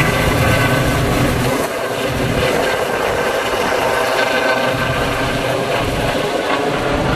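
A DRF air-rescue helicopter flying overhead and climbing away, its rotor and turbine noise loud and steady, easing slightly after about two seconds.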